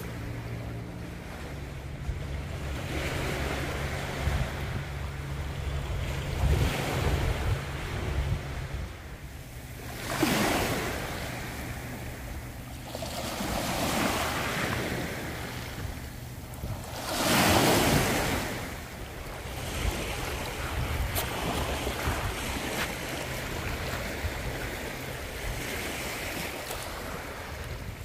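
Small waves breaking and washing up a pebbly shore, surging every few seconds, with two louder surges, the loudest a little past the middle. Wind rumbles on the microphone throughout.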